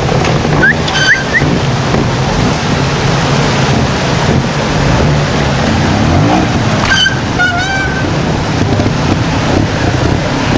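A trials motorcycle engine revving up and dropping back in short bursts as it is ridden over rocks through a stream, over the constant rush of the stream's water. A few short high chirps come about a second in and again about seven seconds in.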